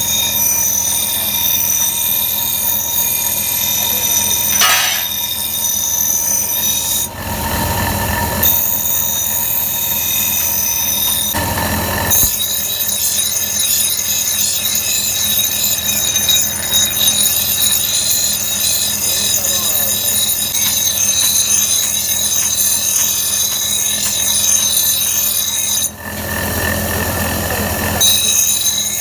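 A grinder running against the steel of an axe head, giving a steady high-pitched squealing whine whose pitch wavers slightly. Twice it gives way briefly to a burst of broader rushing noise.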